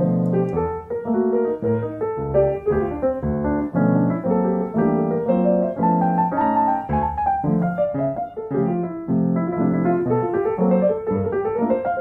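Nord digital stage piano playing a solo jazz passage: full chords over bass notes with a moving melody line on top, with no voice.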